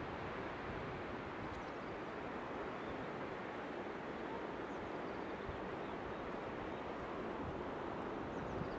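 Wind buffeting the microphone over a steady, even outdoor rushing noise.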